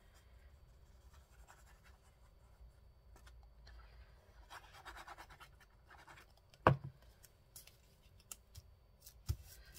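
Faint scratching of paper and craft materials being handled on a tabletop, with one sharp tap about two-thirds of the way through and a few small clicks near the end.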